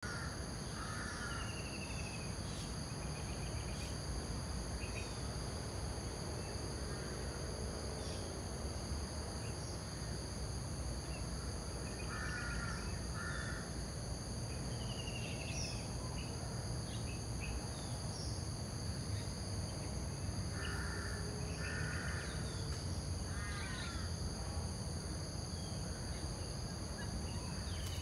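Steady insect drone in several high tones over a low background rumble, with harsh, cawing bird calls coming in short pairs a few times.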